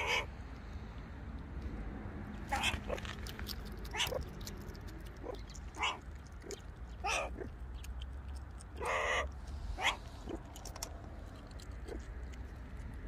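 Meerkat giving a string of short calls, about seven spread through the stretch, with a longer call about nine seconds in.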